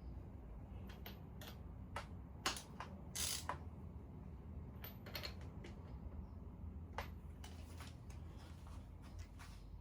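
Faint, irregular clicks and clinks of hand tools working on an engine, a dozen or so scattered short knocks with no steady rhythm.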